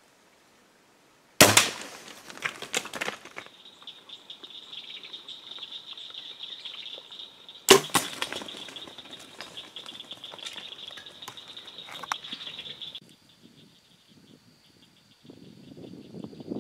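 Two bow shots about six seconds apart. Each is a sharp crack of the released bowstring and the arrow striking, followed by a second or two of crackling and rustling as the animals bolt through the brush and leaves.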